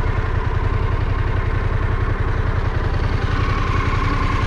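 Harley-Davidson Pan America 1250's V-twin engine running steadily at riding speed, its rapid even firing pulses under a rush of wind and road noise.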